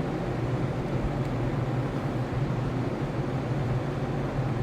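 Steady low mechanical hum under an even noisy hiss.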